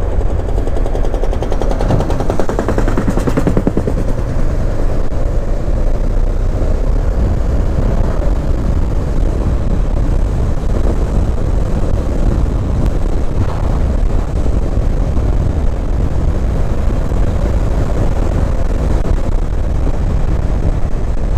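Honda CB500X motorcycle's parallel-twin engine running steadily while riding at road speed, a rapid pulsing engine note over low road and air rumble.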